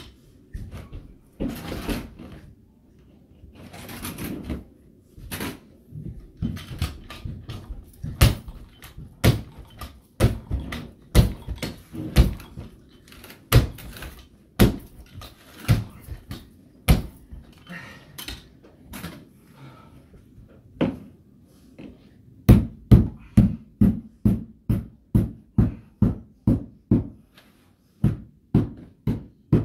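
Hammer blows fastening carpet down on stair treads: scattered single strikes at first, then a quick even run of about three strikes a second near the end.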